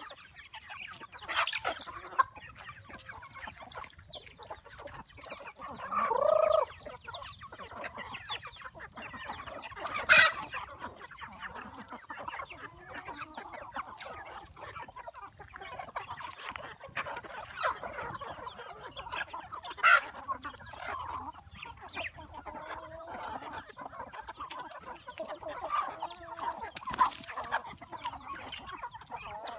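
A flock of chickens clucking with many short calls, and one louder, longer call about six seconds in. A few sharp clicks or knocks stand out, the loudest about ten seconds in.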